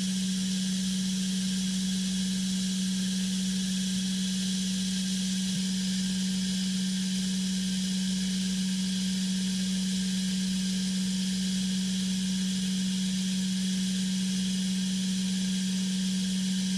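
Steady electric hum of a wood sawing machine's motor: one constant low tone with fainter higher tones and a light hiss, unchanging throughout.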